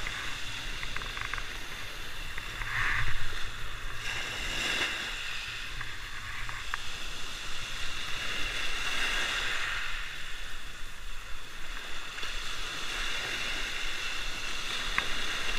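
Small sea waves breaking and washing up over a rocky shore, swelling and falling back every few seconds. A low rumble of wind on the microphone runs underneath, with a couple of faint clicks.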